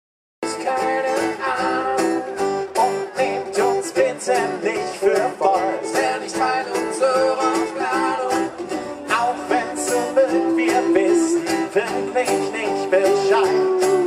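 Live acoustic trio playing: strummed acoustic guitar with upright double bass and light percussion. The music cuts in suddenly about half a second in.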